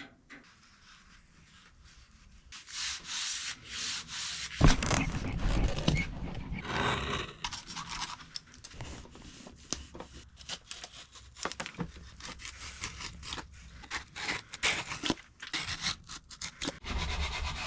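Hand work rubbing on small teak-veneered wood pieces: irregular scraping, rubbing strokes, with a single knock about four and a half seconds in.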